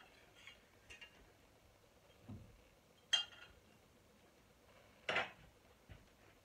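Crockery and kitchen utensils being handled around a metal cooking pot: a few light clicks, a soft thud a couple of seconds in, a sharp click about three seconds in, and a louder clatter about five seconds in.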